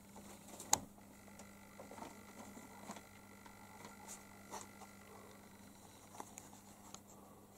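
Faint scattered taps and rustles, with one sharper click under a second in, over a low steady hum.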